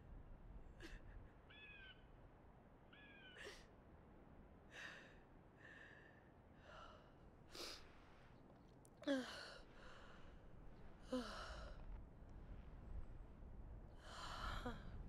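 A young woman weeping quietly: breathy sighs and gasps broken by short, high whimpering cries. Louder sobs come about nine and eleven seconds in, each a cry falling in pitch, and another near the end.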